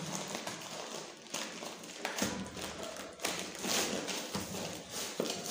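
Plastic courier packaging crinkling and rustling as it is handled and opened, with irregular light taps and knocks as the box inside is worked out of it.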